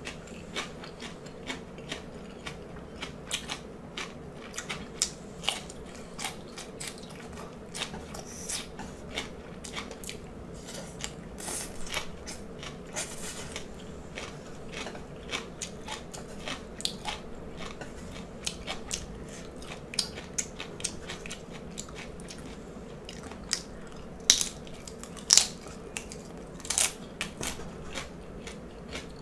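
Close-miked chewing and crunching of fried salt-and-pepper shrimp and vegetables, with sharp clicks all through and a few louder crunches near the end.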